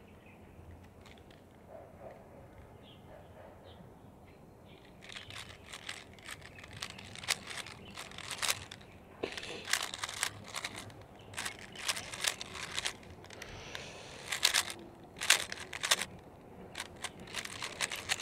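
A Rubik's Cube being turned rapidly in a timed speedsolve, its plastic layers clicking and clacking in quick, irregular flurries that start about five seconds in.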